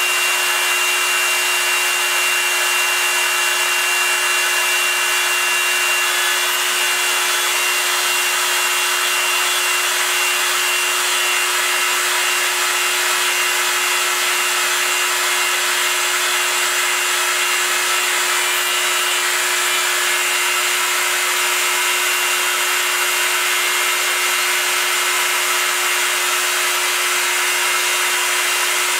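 Proxxon MF 70 mini milling machine, CNC-converted, cutting aluminium with a small end mill: a steady high-speed spindle whine with a hissing cutting noise. The sound holds level and pitch throughout.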